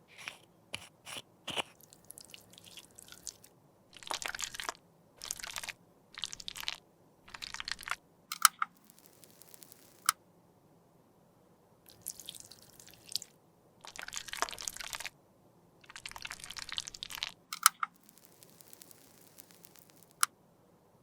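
Makeup being crushed and scraped with a hard tool: a series of short, crunchy scraping strokes, each about half a second to a second long, with a few sharp clicks between them.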